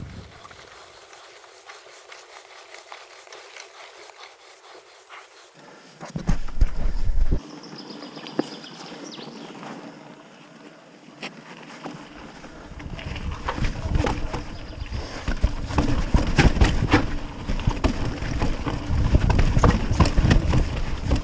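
Mountain bike riding down a rough dirt forest trail, heard from the bike: tyres rolling over dirt and the bike rattling and knocking over bumps. It is quieter at first, with a brief low rumble about six seconds in. From about thirteen seconds on it becomes a loud, busy clatter of knocks as the trail gets rougher or faster.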